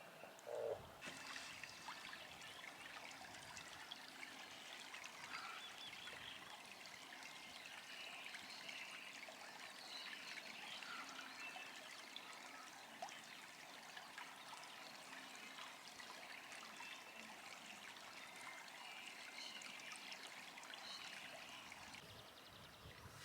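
Faint, steady rush like running water, with one brief louder sound about a second in.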